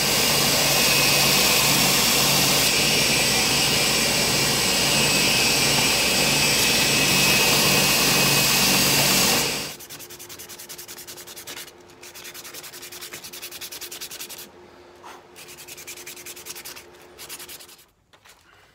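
Belt grinder running as the bloodwood knife handle is shaped against the belt: a loud, steady grinding hiss over a low motor hum. About ten seconds in it cuts off, and quieter, uneven strokes of hand-sanding the handle follow.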